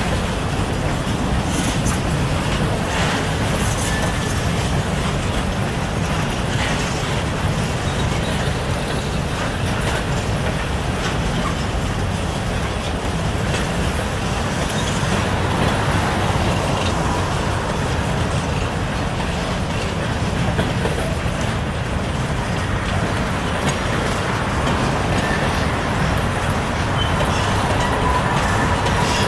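Norfolk Southern mixed freight train's cars rolling steadily past: a continuous rumble of steel wheels on the rails with scattered clicks.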